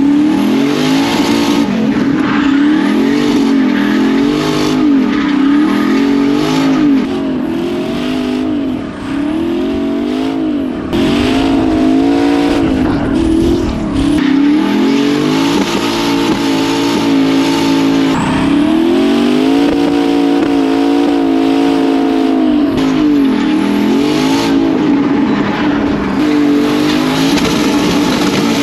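Twin-turbo Corvette C6 drift car's swapped 5.3-litre V8 running hard, its revs rising and falling again and again as it drifts, with tyres squealing.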